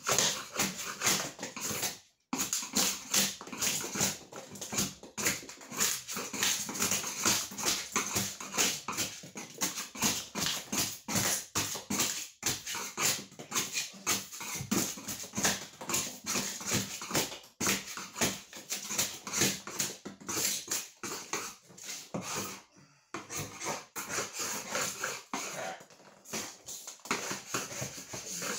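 Hand scraper knocking cured expanding-foam blobs off a plywood floor in quick repeated strokes, with a couple of short pauses.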